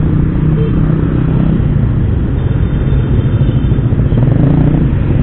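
Motorcycle engine running at a steady low note while riding slowly through traffic, over a low rumble.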